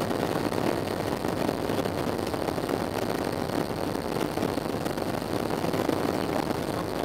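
Steady cabin noise inside a Boeing 737-700 taxiing, its CFM56 engines at low thrust, an even rumble that neither rises nor falls.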